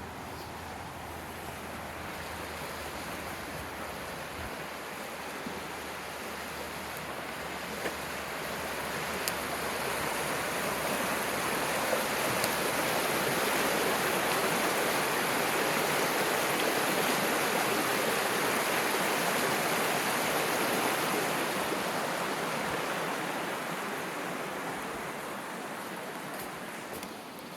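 Creek water rushing, a steady noisy rush that swells louder toward the middle and eases off again near the end.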